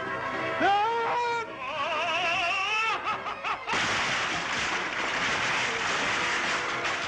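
Orchestral film score: a note slides up and holds, then a few wavering, vibrato-laden notes, followed by about three seconds of loud hissing noise.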